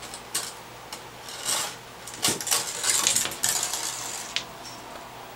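A kitten's toy coil spring skittering and clattering against the hard bathtub, mixed with the kitten's claws scrabbling on the tub surface: a quick run of sharp clicks and scrapes, busiest in the middle and dying away near the end.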